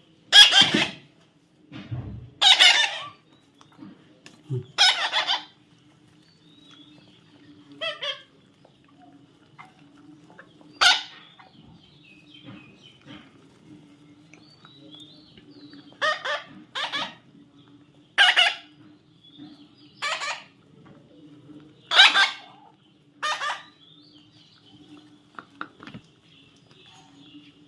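Baby parrot giving harsh, raspy squawks, about a dozen short calls at uneven intervals.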